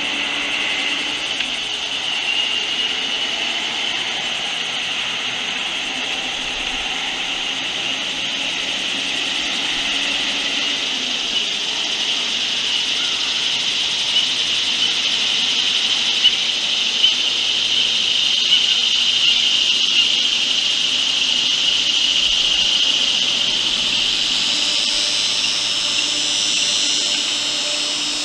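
A gray squirrel gnaws and scrapes at a pine cone, with a few sharp clicks in the middle. Underneath is a steady high-pitched drone, which is the loudest sound throughout.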